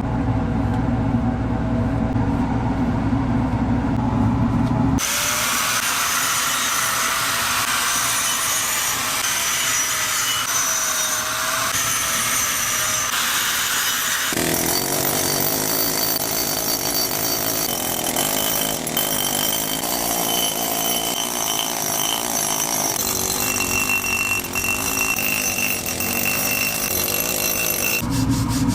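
Power tools at work in three abrupt cuts. A low-pitched motor hum runs for about five seconds, then a high-pitched abrasive hiss with a faint wavering whine, then a harsher, fuller rasping grind until near the end.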